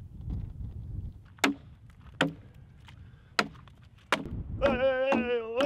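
An axe chopping into a log with four sharp chops about a second apart. Near the end a held, wavering note begins: a voice or an instrument.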